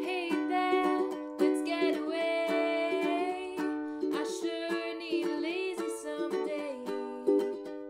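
A ukulele strummed in a steady run of chords, with a woman singing a melody over it.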